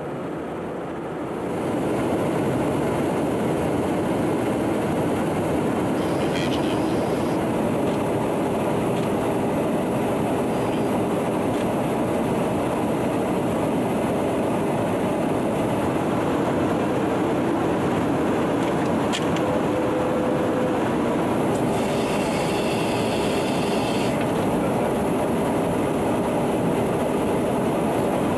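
Steady roar of an aircraft in flight heard from inside the cabin, engine and airflow noise with a faint hum of tones. It steps up louder about a second and a half in, then holds even.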